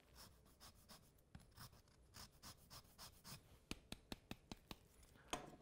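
Lemon peel being zested on a rasp grater: faint, short scraping strokes, sparse at first and quicker and more regular in the second half.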